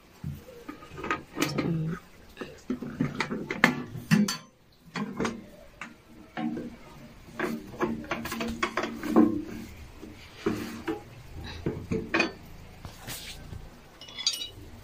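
Steel ammo box being opened and handled: the latch and lid clank, followed by a long string of irregular metallic knocks and rattles, many of them ringing briefly in the hollow box.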